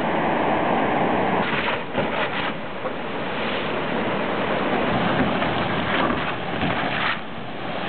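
Whitewater rushing over the rapids and a waterfall of a creek, a loud, steady noise of water. It dips slightly in level about two seconds in and again near the end.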